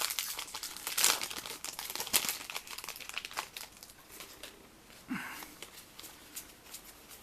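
Booster pack's foil wrapper being torn open and crinkled, with dense crackling for the first few seconds, then fainter rustling as it is handled.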